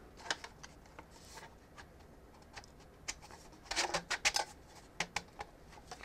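A small network router being handled and fitted into a 3D-printed plastic rack mount: scattered light clicks, rubs and scrapes, with a busier run of clicks a little past the middle.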